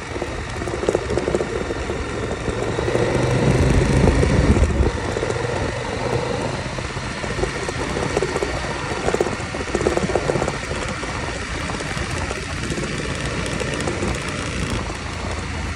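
KTM 1190 Adventure's V-twin engine running under way on a gravel road, mixed with steady wind and road noise. The engine gets louder from about three to five seconds in.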